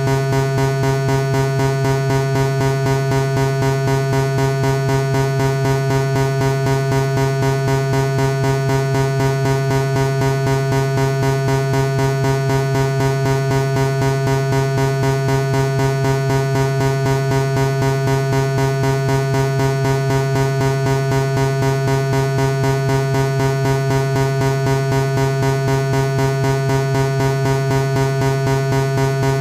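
Synthesizer imitation of an MRI scanner's gradient-coil noise: a steady low buzzing tone with overtones, pulsing at a rapid, even rate.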